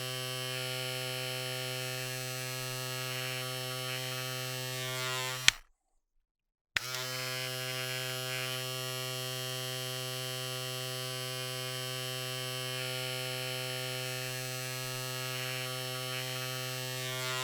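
Electric razor running with a steady buzz. It is switched off with a click about five and a half seconds in, falls silent for about a second, then clicks back on and runs steadily again.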